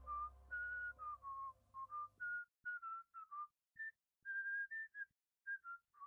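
A person whistling a tune in short notes. Background music fades under it and stops abruptly about two and a half seconds in.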